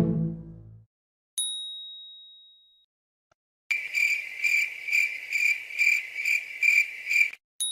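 A 'speechless' comedy sound effect: a single high ding, a pause, then crickets chirping in an even rhythm of about two chirps a second for several seconds, followed by another ding near the end. A low musical sting fades out in the first second.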